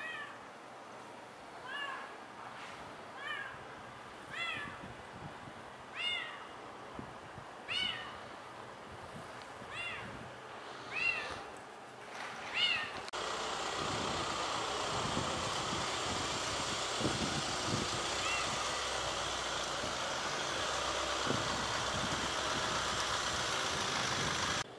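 Calico cat meowing over and over, about nine short calls roughly a second and a half apart. About halfway through the calls stop and a steady background noise takes over.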